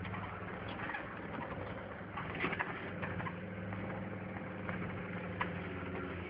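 Diesel engine of a Mercedes-Benz G-Class 'Wolf' military off-roader running steadily under load, heard from inside the cab. The body and fittings rattle and knock over rough off-road ground, with a cluster of louder knocks about two and a half seconds in.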